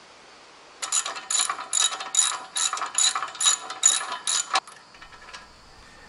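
Socket ratchet wrench clicking in about ten quick back-strokes, with a metallic ring, as the nut comes off the bolt that holds the backhoe bucket's pin.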